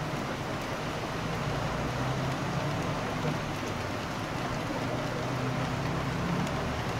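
Heavy rain falling steadily, a constant hiss, with a low engine rumble from street traffic under it.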